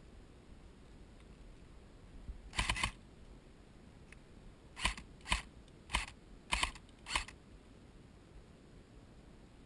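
Airsoft gun shots: a quick burst of a few rapid shots, then five single shots about two-thirds of a second apart.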